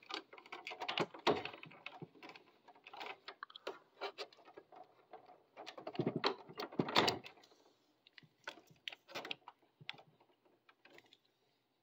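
Irregular clicking and rustling of hands handling the fan motor's cable and plastic parts inside a mini split indoor unit, with a louder cluster of clicks and knocks about six to seven seconds in.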